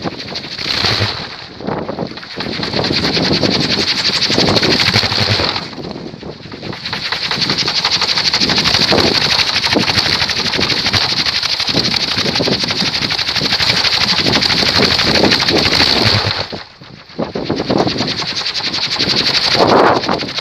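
Large kolecer, a wooden wind-driven propeller on a bamboo pole, spinning fast and giving a loud rumbling whir with a rapid, even pulse from its blade. It eases off briefly about six seconds in and again about three quarters of the way through, then picks up again.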